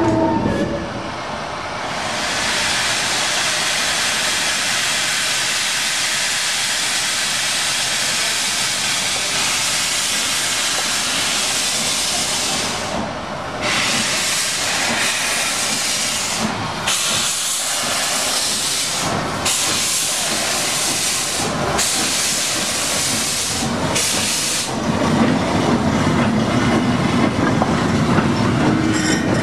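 Steam hissing hard from the Manchester Ship Canal tank locomotive No. 67, with its cylinder drain cocks open. About halfway through, the hiss breaks into long surges every two to three seconds as the engine starts to move. Near the end, the lower rumble of the locomotive and wagon rolling takes over.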